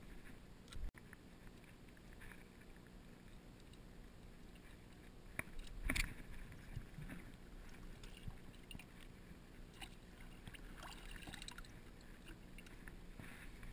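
Faint handling and rustling sounds, with two sharp knocks about five and six seconds in and a few lighter clicks later.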